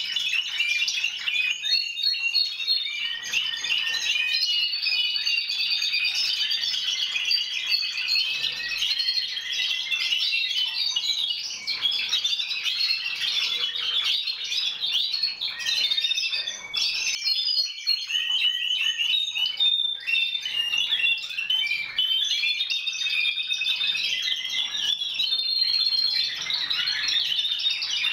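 Several Timbrado Español canaries singing at once: continuous, overlapping high trills and chirps.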